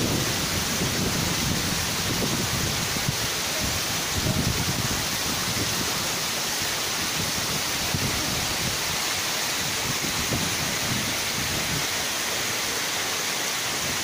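Waterfall cascading down a rock face: a steady rush of falling water with an uneven low rumble beneath.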